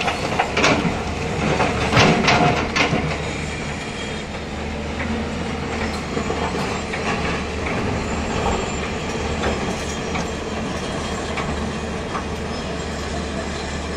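Hyundai 210 crawler excavator's diesel engine running steadily under load, with clattering and knocks of the steel bucket scraping and striking loose stone in the first three seconds.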